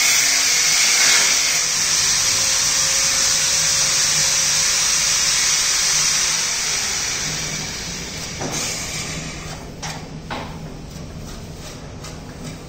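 Ditec sliding-gate operator's electric gear motor running as it drives a 600 kg sliding gate open: a steady mechanical whir that gets quieter from about halfway through, with a few short knocks near the end.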